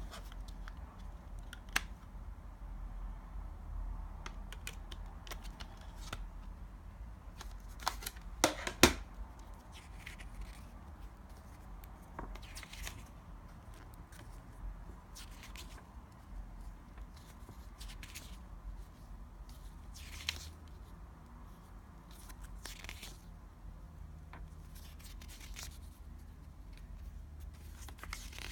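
A CD's packaging being opened and handled: scattered snips, clicks and plastic crackle, with a quick cluster of sharper clicks about eight to nine seconds in.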